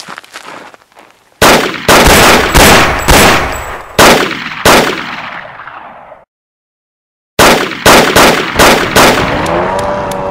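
A volley of about six loud gunshots, then a second or so of dead silence, then about five more shots. Near the end a Chevrolet Camaro's engine revs up as the car pulls away.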